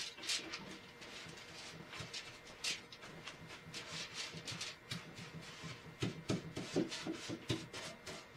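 Paintbrush stroking paint onto a wooden cabinet: a quick series of faint, short brush strokes, with a few duller knocks about six to seven seconds in.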